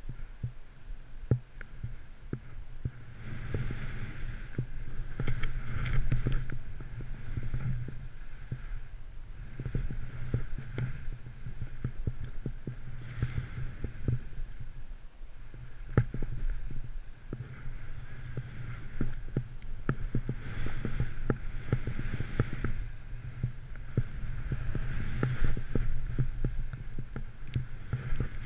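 Riding through deep powder snow with a mounted action camera: a continuous low rumble of wind and movement with many small knocks, and a hiss of snow that swells and fades every few seconds.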